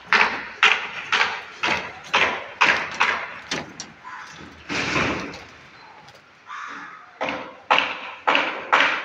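Footsteps on a rebar mesh laid over steel slab formwork plates: sharp knocks about two a second, pausing for a couple of seconds about halfway through.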